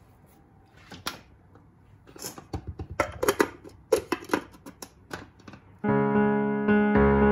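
Hard plastic clicks and knocks as the lid and motor head are set onto a mini electric chopper's bowl. Piano background music starts abruptly near the end.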